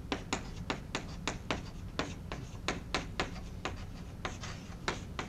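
Chalk tapping and scraping on a blackboard as letters are written: a quick run of short, sharp clicks, about four a second.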